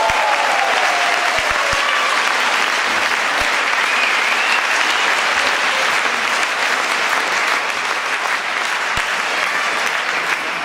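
Spectators applauding and cheering after a badminton rally ends, with a long cheer falling in pitch at the start. The applause eases off near the end.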